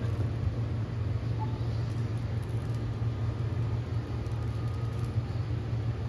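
Electric RV awning motor running as the awning retracts: a steady low hum.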